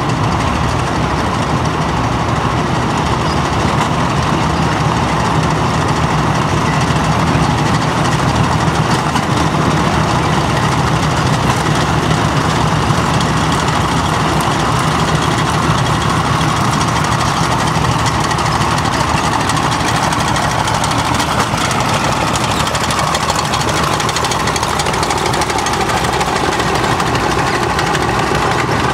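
Engines of a column of tracked armoured vehicles running steadily at idle and low speed: a loud, continuous rumble.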